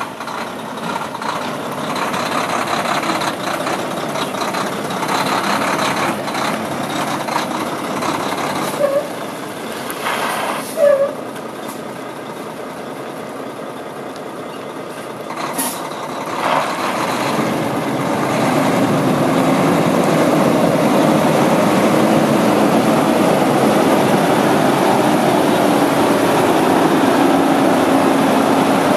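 Diesel engine of a Volvo VNM day cab tractor running as the truck drives around, with a brief air-brake hiss about halfway through. It gets louder and steadier over the last third as the truck comes up close.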